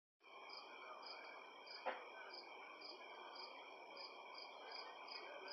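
A faint chorus of night insects: steady high trilling with a regular chirp pulsing about three times a second. A single short click comes about two seconds in.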